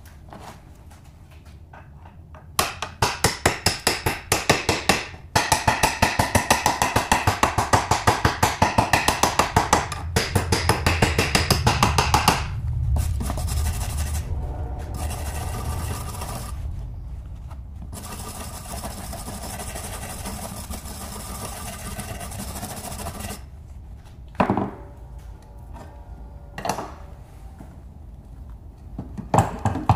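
Stick (shielded metal arc) welding from a small 110-volt stick welder on a steel plate: the arc crackles and sputters loudly, stopping and restriking several times, then settles into a steadier hiss. Two brief bursts come near the end.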